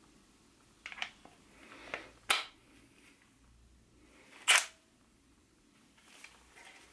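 Sharp metal-and-plastic clicks as an impact socket is fitted onto the anvil of a Milwaukee M12 stubby 1/2" impact wrench and the tool is handled: two loud clicks about two seconds apart, with a few quieter ones around them.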